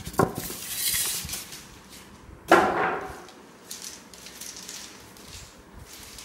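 Packaging being handled while a washing machine is unboxed: two sudden sounds about two and a half seconds apart, the second louder, each falling in pitch, with rustling between them.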